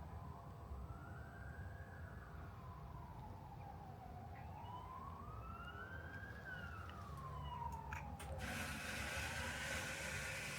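Emergency-vehicle siren wailing slowly, its pitch rising and falling twice over about eight seconds over a low background rumble. A few clicks follow, then a loud, even hiss starts suddenly about eight seconds in and drowns it out.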